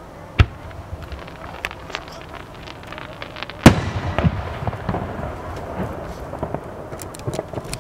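Aerial firework shells bursting: a sharp bang about half a second in, scattered pops and crackles, then the loudest burst a little before halfway, followed by crackling and more small pops, with a quick cluster of crackles near the end.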